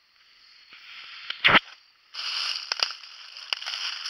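Footsteps crunching through dry fallen leaves, with a sharp thump about a second and a half in; the crunching runs steadily from about two seconds in.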